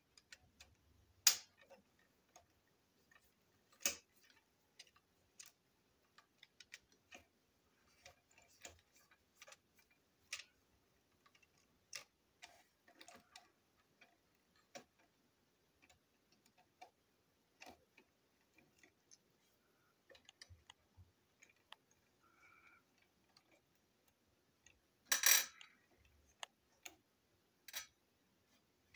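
Scattered small clicks and taps as a screwdriver works on a small plastic model locomotive chassis and tiny parts and screws are handled and set down on a tabletop. There is a louder short clatter near the end.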